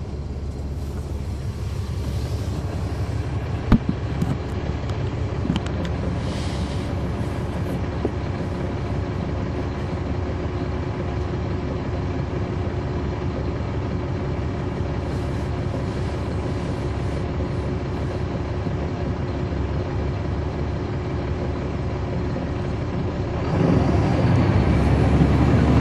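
Caterpillar C13 ACERT diesel engine of a NABI 416.15 transit bus running steadily, heard from on board, with the radiator fan running. A sharp click sounds about four seconds in, and the engine gets louder about two seconds before the end.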